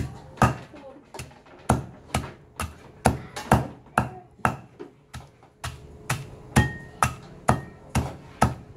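Knife chopping on a wooden cutting board: steady, even strokes at about two a second.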